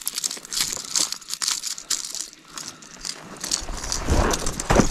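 Footsteps crunching and crackling through dry grass and gravel, with heavier, deeper thudding steps near the end.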